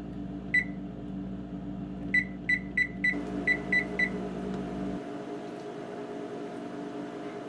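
Tappan oven's touch control panel beeping at each button press as the bake temperature is stepped down: one short high beep, then a quick run of seven more at about three a second, over a steady low hum.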